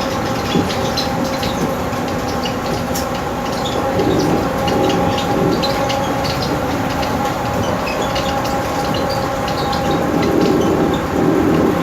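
Automated people mover car running along its guideway, heard from inside the car: a steady electric whine in two tones over a rumble, with many small clicks and rattles.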